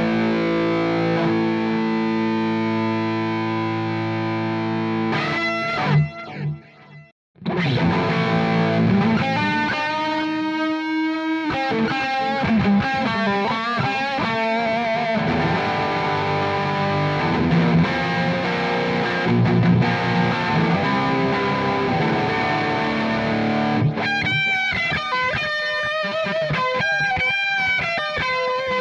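Fender Telecaster with Texas Special pickups played through an overdriven amp simulator with delay. It starts on a held, ringing chord, cuts out briefly about seven seconds in, then goes into melodic single-note lines that turn into fast runs near the end.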